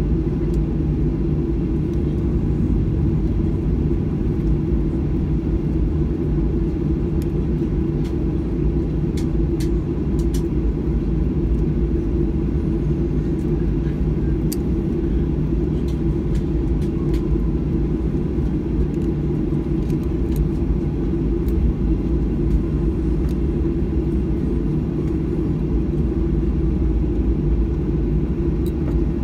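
Cabin noise of a Boeing 737-800 taxiing, heard from a window seat behind the wing: its CFM56-7B turbofan engines at taxi power give a steady low rumble, with a faint steady whine and a few light clicks.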